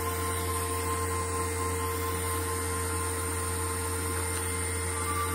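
A steady electrical or machine hum with a few constant whining tones over it.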